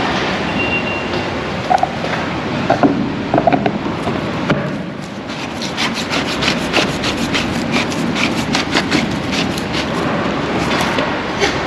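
Tools and gear being handled and packed up: rubbing and scraping, with a quick run of light clicks and knocks in the middle, about three or four a second.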